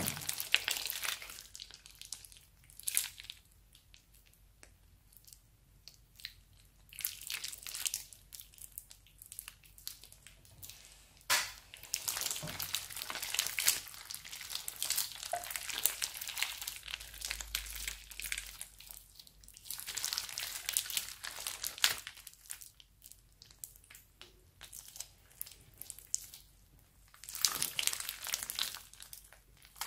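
Crunchy slime full of beads being squeezed and kneaded by hand, crackling and clicking in bursts with quieter pauses between squeezes.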